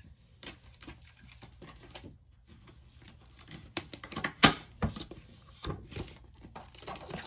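Handling of a cellophane-sealed perfume box, the seal being picked at: irregular clicks, taps and scratches, growing busier about halfway through, with one sharp knock about four seconds in.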